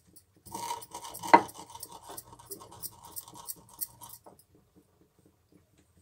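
Rolling pin crushing roasted cumin seeds on a round board: quick, even gritty rolling and scraping strokes, with one sharper knock about a second in. The strokes stop a little after four seconds in.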